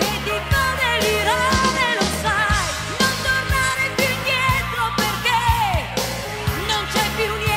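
Italian blues song played by a full band with a steady beat, with a wavering, bending lead melody over the top.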